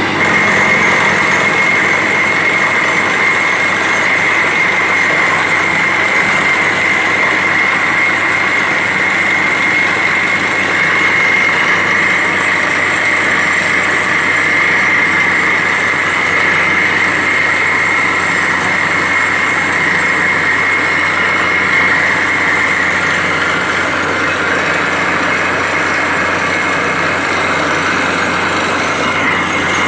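Borewell drilling rig running steadily, a loud, even machine noise with a steady high whine over it.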